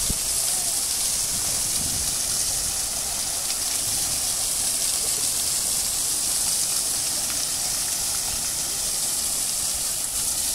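Large sculpture fountain's water jets spouting and splashing into the basin close by: a steady, unbroken rush of falling water.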